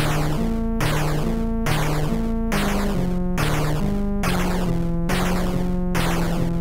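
A short synthesizer beat: a keyboard-like chord-and-bass pattern struck about once a second, each stroke with a falling sweep, the notes shifting every stroke or two. It starts abruptly and cuts off at the end.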